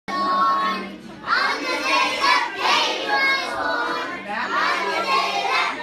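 A classroom full of young children's voices at once, high-pitched and overlapping, chattering and calling out.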